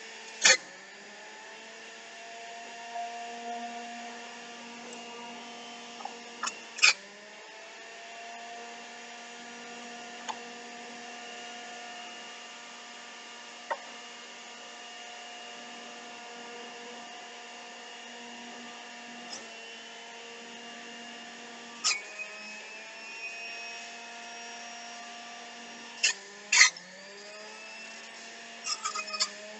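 Black & Decker centrifugal juicer running with a steady motor whine while juicing cabbage. Several loud knocks come as pieces are pushed into the chute. Each time the motor bogs down under the load and its pitch dips, then climbs back up.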